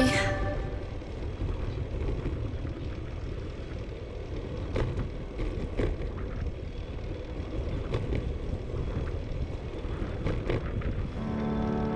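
Wind rumbling steadily on the microphone of a bicycle-mounted action camera during a slow ride, with a few light clicks scattered through it. Music comes back in near the end.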